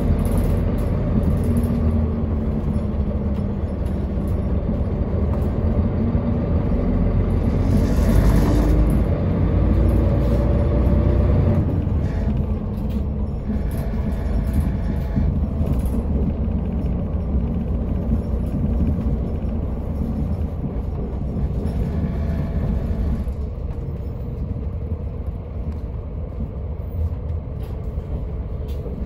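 Interior noise of a city route bus on the move: the engine's steady drone and road rumble, its pitch rising and falling with the throttle. A short burst of noise comes about eight seconds in, and the sound eases a little near the end.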